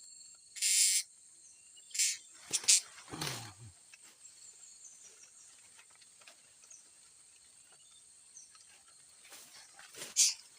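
Outdoor ambience: a steady high insect drone with a few faint chirps, broken by several short hissing rustles in the first few seconds and again near the end.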